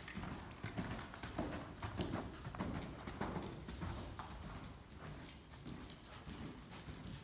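Half-Arabian warmblood gelding's hooves cantering on sand arena footing: a steady rhythm of soft thuds, about three strides every two seconds.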